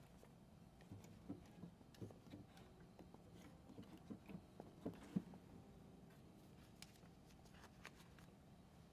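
Near silence: room tone with a few faint clicks and rustles, the loudest click about five seconds in.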